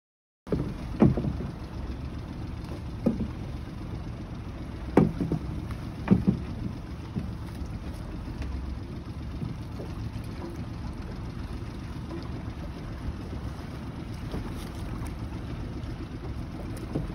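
Steady low rumble of wind and water around a small open boat, with about four sharp knocks in the first six seconds, as of gear striking the hull while a line is worked over the side.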